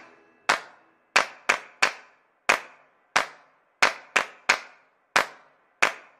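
Sharp hand claps in a steady rhythmic pattern, some single and some in quick runs of three, on a beat of about three a second, with no melody or singing.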